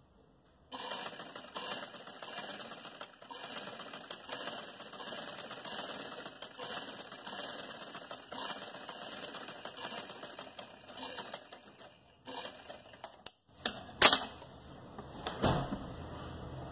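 Sewing machine stitching a seam through cotton fabric: a fast, even clatter of the needle and feed that starts within the first second and stops about twelve seconds in. A few handling knocks and a sharp click follow near the end, the loudest sound.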